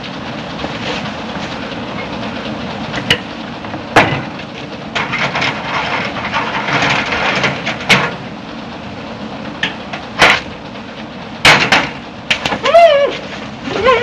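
Irregular sharp cracks or bangs over a steady background hiss, about half a dozen spread through the stretch, with a short falling pitched tone near the end.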